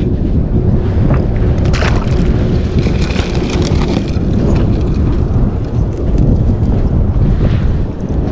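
Wind buffeting the microphone, a loud, steady low rumble, with a few light clicks.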